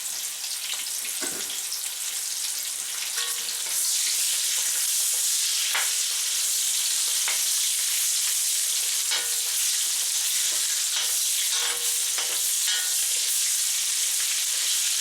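Onion rings sizzling as they fry in hot pork fat in a wok. The sizzle grows sharply louder about four seconds in, with occasional clicks and scrapes of a utensil stirring against the wok.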